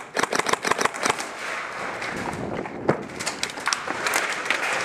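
Airsoft guns firing: a fast run of sharp cracks, about eight a second, in the first second. Scattered single shots follow over a noisy background.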